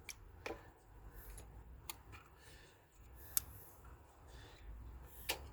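Sparse sharp metallic clicks and taps, five in all, as a hand wrench works a stubborn nut on an ATV carburetor mount.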